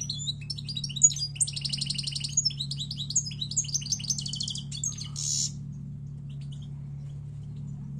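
European goldfinch singing: a fast, twittering song with two rapid trills, ending in a harsh buzzy note about five seconds in, after which the bird falls silent.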